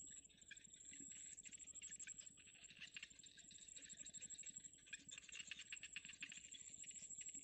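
Faint, rapid dry ticking and rustling from a cinnamon bittern's nest, where the downy chicks and the adult stir in the dry grass. A steady thin high tone runs behind it.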